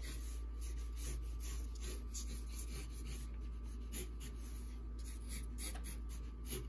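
Sharpie marker scratching and rubbing on drawing paper in many short, irregular strokes as a dark area is scribbled in, over a low steady hum.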